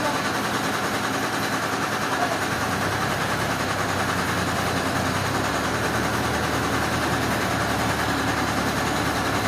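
An engine running steadily at a constant speed, with a steady wash of machine noise over it.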